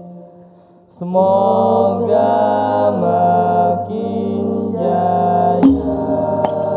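A group of young men chanting sholawat together in unison through microphones, in long held notes. The voices break off briefly at the start and come back in about a second in. Near the end, hand-drum strikes of the hadrah join the singing.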